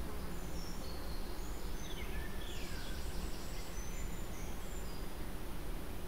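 Outdoor nature ambience: a steady hiss and low rumble, with a cluster of short high chirps and whistles in the middle, some sliding down in pitch.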